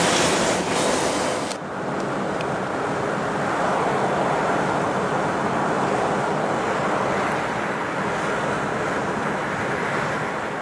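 Steady rush of wind and tyre noise heard from inside a moving car at highway speed. For about the first second and a half a harsher hiss sits on top, then cuts off sharply.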